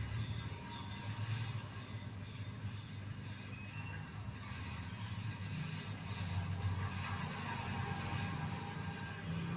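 Motorcycle engine running steadily, its low note swelling a little now and then.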